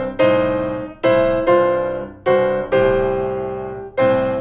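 Piano playing a boogie-woogie blues riff with both hands: a right-hand blues-scale riff over a looping left-hand bass line. The chords are struck in an uneven, swung rhythm, each ringing and fading before the next.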